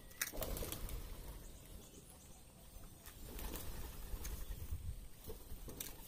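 A flock of feral pigeons feeding, cooing with wing flaps and a few sharp taps. The activity is busiest just after the start and again around three and a half seconds in.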